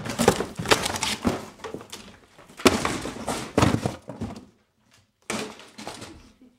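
A homemade wooden Rube Goldberg contraption of boards and slats being kicked over and smashed. Wood crashes and bangs in a rapid run of impacts for about four seconds, then clatters again briefly near the end.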